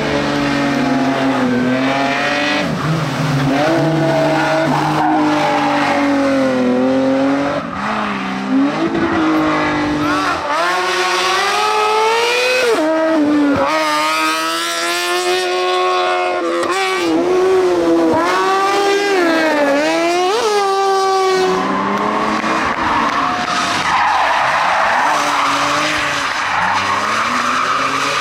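Competition car engines at full throttle, revving hard, the pitch climbing and dropping sharply again and again with gear changes and lifts. In the middle stretch a higher, thinner-sounding engine takes over, and near the end the sound turns rougher and noisier.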